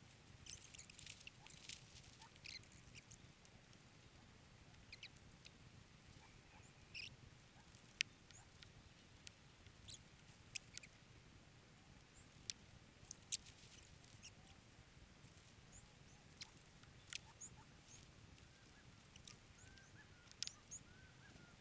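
Faint, scattered clicks and light rustles of a lightweight tent being unpacked and pitched, over near-silent outdoor quiet. A few faint high chirps near the end.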